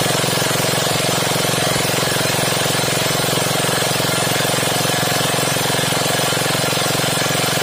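Greaves MK12 single-cylinder petrol engine running steadily at a fast, even beat, loud and close, just rebuilt with new piston rings and running well.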